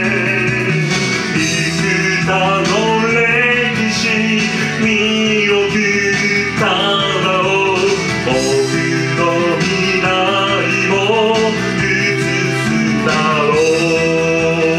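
Japanese anime theme song playing: a full band arrangement with guitar under a flowing melodic lead line.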